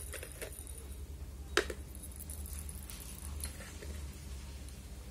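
Small T5 glass fluorescent tubes being handled and knocked together, with light clinks and taps and one sharper click about a second and a half in.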